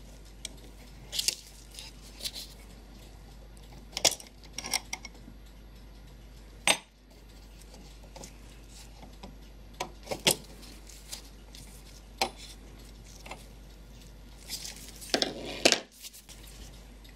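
Brass parts of a Japanese 40-day wall clock movement clinking and tapping as the plate and wheels are lifted off and set down: scattered sharp metallic clicks, loudest in a cluster near the end.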